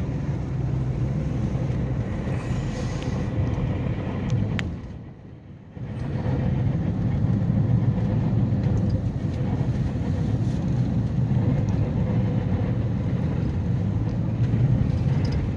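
Steady road and tyre noise heard inside a car cabin driving a snow-covered highway, a low rumble with a faint steady tone. The noise briefly drops away about five seconds in, then returns.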